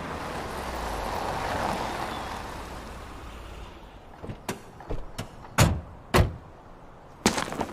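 Cars pulling up, a swelling rush of noise that fades, followed by several car doors shutting with short sharp thuds.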